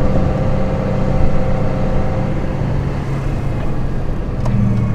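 Car-transporter lorry's diesel engine and road noise while driving, heard from inside the cab. The engine's hum fades in the middle and comes back strongly near the end, with a faint click just before.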